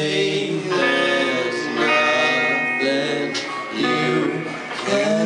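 Live rock band playing a song: strummed guitars, with a man singing into the microphone at times.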